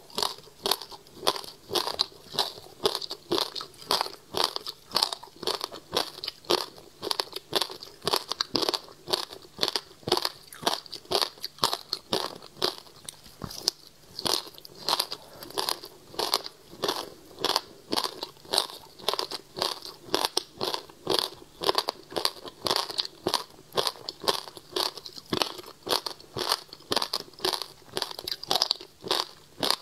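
Frozen passion fruit ice, studded with seeds, being bitten and chewed: a steady run of crisp crunches, about two or three a second.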